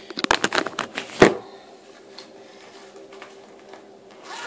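Handling noise from the recording device being picked up and set down at a new angle: a quick run of clicks and rubbing, then a sharp knock about a second in, followed by a few faint ticks.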